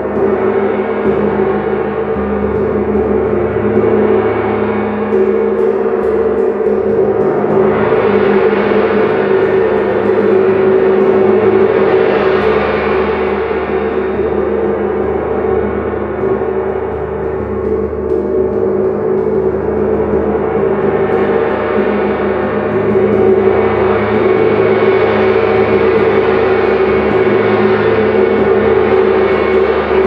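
A 22-inch wind gong, which the owner believes is a Turkish-made, possibly Zildjian, instrument, played continuously with two soft mallets. It makes one sustained, humming wash that never dies away, swelling louder and brighter about eight seconds in and again from about twenty-three seconds.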